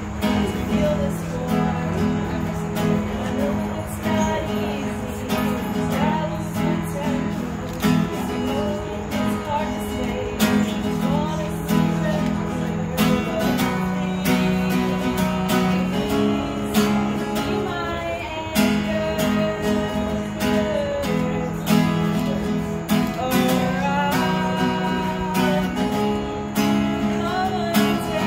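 Acoustic guitar strummed steadily, chords changing every couple of seconds, while a woman sings a melody over it.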